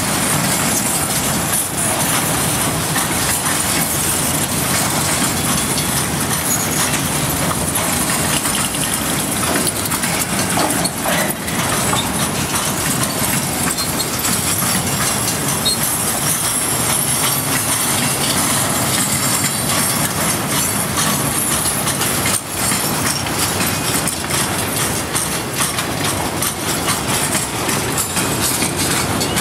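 Freight train boxcars rolling past a grade crossing: a steady, loud rush of steel wheels on the rails with scattered clicks.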